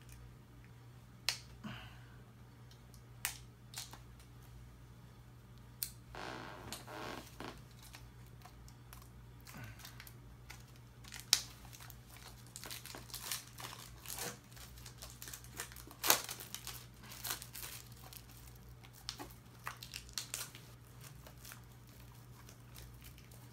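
Plastic shrink wrap on a DVD case being cut with scissors and torn and peeled off, crinkling with scattered sharp snips and clicks. It is busiest in the second half.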